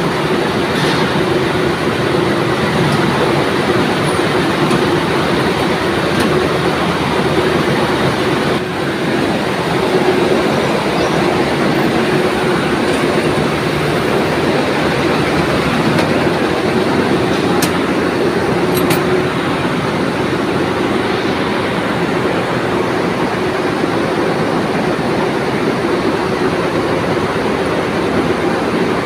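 Cotton comber machines running: a loud, steady mechanical clatter with a constant hum underneath.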